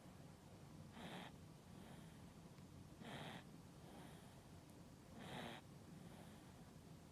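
Two-month-old baby snoring faintly in sleep. Three short, stronger breaths come about two seconds apart, with fainter breaths between them.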